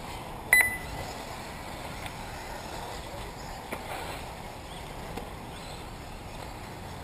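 A single short electronic beep about half a second in, a clear high tone that is the loudest thing here, over steady faint background noise from the RC race track.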